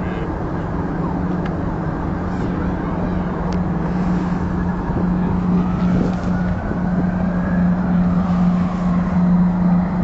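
A steady engine drone over a low rumble of noise, growing somewhat louder in the second half.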